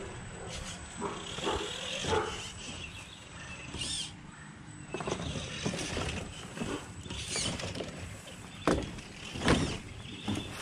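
Redcat Clawback 1/5-scale RC rock crawler clambering over loose wooden boards: irregular knocks and clunks from tyres and shifting planks, with the drivetrain whining in short spurts. The loudest knocks come near the end.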